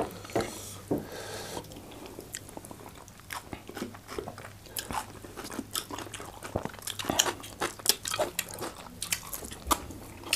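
Close-up eating sounds of people chewing mouthfuls of fufu with efo riro soup and goat meat: an irregular run of short, wet mouth clicks and smacks as they bite and chew.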